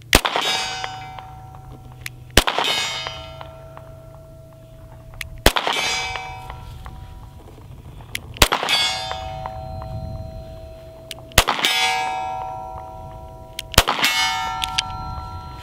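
Six slow, deliberate shots from a Taurus G2C pistol, about one every two and a half to three seconds. Each shot is followed by a clear ringing tone that fades over a second or two: a steel target ringing from a hit at 50 yards.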